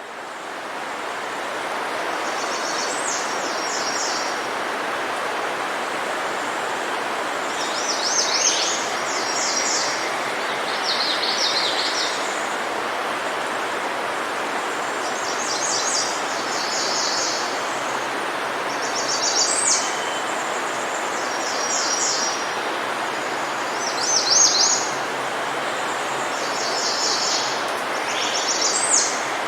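A bird calls again and again, every few seconds, each call a quick run of high notes. Under it is a steady rushing background noise.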